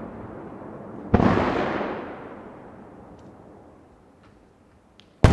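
Aerial firework shells bursting at close range: a sharp bang about a second in, followed by a long echo that dies away over a few seconds. A few faint crackles come after it, and a second loud bang lands at the very end.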